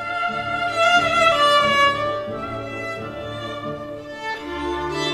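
Solo violin playing a slow, singing melody of long held notes that slide from one pitch to the next. About four seconds in, low sustained string notes come in underneath.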